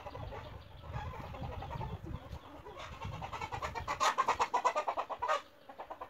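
A chicken clucking in a rapid run of short notes, about ten a second, loudest in the second half before breaking off.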